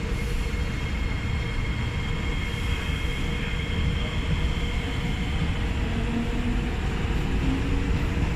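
Singapore MRT metro train running: a steady deep rumble with a faint electric whine held over it.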